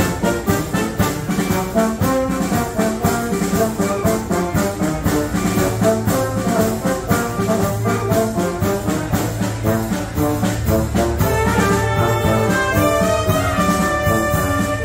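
Military wind band playing a Spanish pasodoble: trumpets, trombones and saxophones over a tuba bass, with a drum kit keeping a steady beat.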